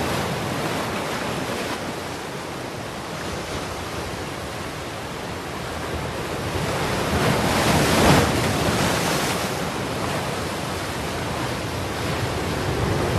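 Steady rushing of fast river water at the confluence of the Alaknanda and Bhagirathi rivers, briefly louder about eight seconds in.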